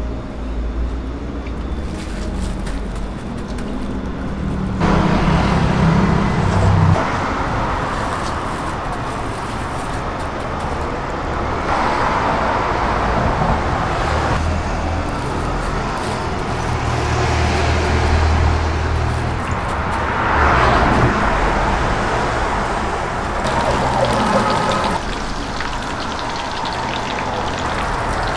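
Hot oil sizzling in a wide frying pan as battered pieces fry, louder from about five seconds in, over a steady low rumble.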